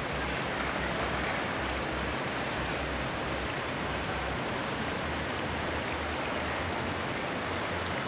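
Steady rush of a river in flood, fast muddy water churning past a half-submerged concrete structure.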